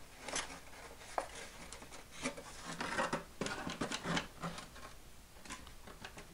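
EPO foam model airplane being handled and shifted on a workbench: scattered rubs, scrapes and light taps of foam and plastic against the bench surface.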